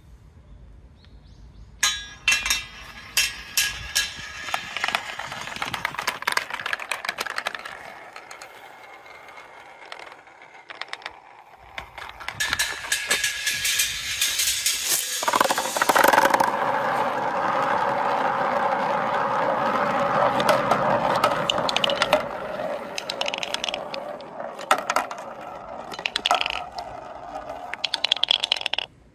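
Small coloured balls rolling along an aluminium marble-run channel, clicking and rattling as they are released and run down the rails. About halfway through they settle into a steady rolling rumble for several seconds, and near the end they clack one after another into a wooden bowl.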